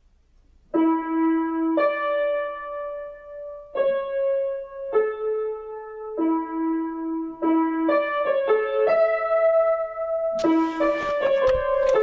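Piano improvisation: slow single notes and chords in the middle register, each held about a second, starting about a second in and growing busier. A hiss of noise joins near the end.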